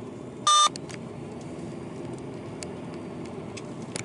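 A short, loud electronic beep about half a second in, then the steady low rumble of a car driving, heard from inside the cabin, with a few faint ticks.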